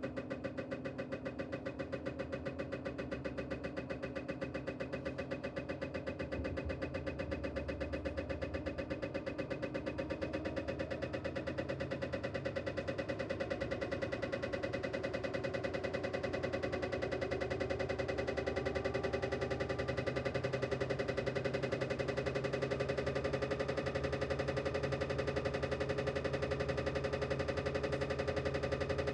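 Toshiba drum-type washing machine's drum turning with an abnormal noise: a steady mechanical hum with a fast, even pulsing, slowly rising in pitch and growing louder. The noise comes from a faulty drive part, the coil motor or rotor, the fault behind the E71 and E72 errors.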